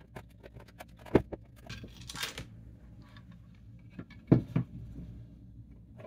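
Hard plastic parts of a Kobalt 80V battery pack clicking, knocking and scraping as the cell pack is slid into its case and the cover is fitted. There is a sharp knock about a second in, a short scrape, then two knocks a little after four seconds.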